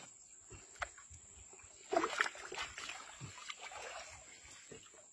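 Water sloshing and splashing against the side of a wooden canoe, with a few light knocks, as a rope is tied around the tail of a large fish in the water. There is a louder burst of splashing about two seconds in.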